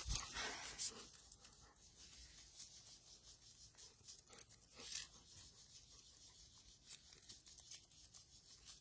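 Faint rustling and handling noise with scattered small clicks and taps, a little louder in the first second.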